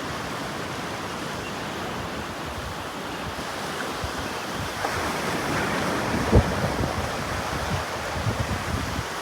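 Ocean surf washing in steadily, with wind on the microphone. The surf swells a little after the halfway point, and a sudden low thump, the loudest sound, comes about six seconds in.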